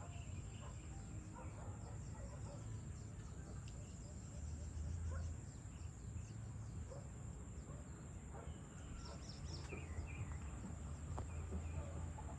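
Outdoor evening ambience: scattered short bird chirps over a steady low hum, with a faint steady high-pitched buzz above.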